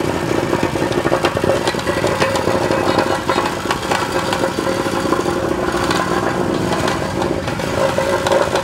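Petrol-engine plate compactor running steadily, its vibrating plate tamping loose gravel with a rapid, even pulse.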